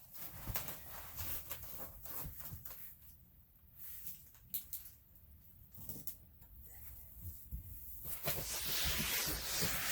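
Scattered light clicks, knocks and rustling from hands working with flooring underlayment and tools. A steady hiss starts about eight seconds in.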